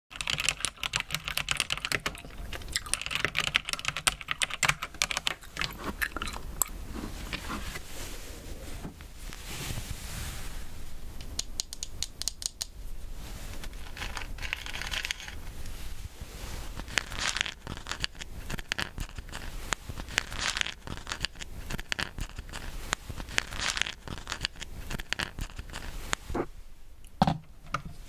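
Mechanical keyboard with brown switches being typed on, fast soft clicks over the first few seconds, then scattered bursts of gummy bears being handled and chewed.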